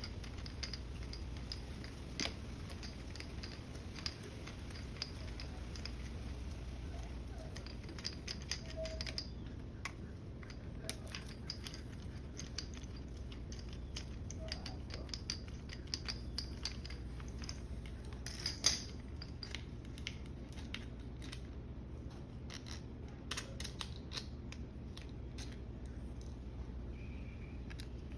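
Scattered light clicks and taps of hand tools and small trimmer parts being handled during carburetor disassembly, over a steady low hum; a sharper clatter about two-thirds of the way through.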